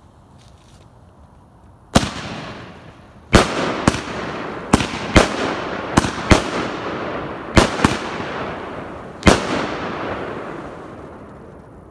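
The "Crisis" multi-shot consumer firework going off. After about two seconds of quiet comes an irregular series of about ten sharp bangs, each trailing off into a fading wash of noise, which thins out toward the end.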